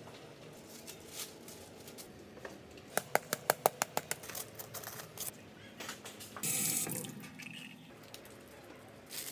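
A quick run of about nine sharp knocks as a hand tool strikes the hardened, baked soil crust around the roasted chicken, cracking it open. A short rustle follows a couple of seconds later.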